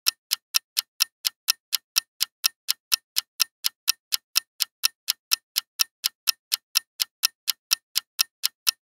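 Clock-tick countdown sound effect: short, even ticks at about three a second, marking the time running out on a quiz timer.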